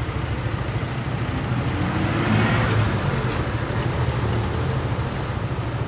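Street traffic: a steady low engine rumble, with a vehicle passing and growing louder about two seconds in before fading.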